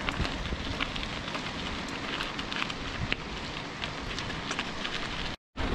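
Mountain bike tyres rolling over a loose gravel and stone road: a steady crunching noise peppered with small crackles and pops of stones. The sound cuts out completely for a moment near the end.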